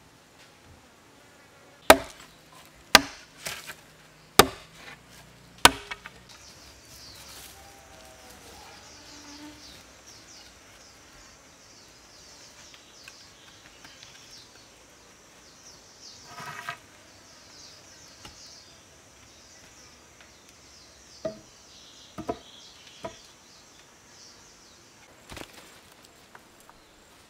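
Four sharp chops into wood, roughly a second apart, followed later by three lighter knocks. Insects buzz steadily in the background.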